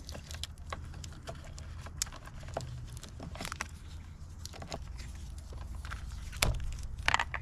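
Vinyl electrical tape being pulled off the roll and wrapped around a bundle of wires: scattered small crackles and clicks of the tape and handled wires, with a couple of louder snaps near the end.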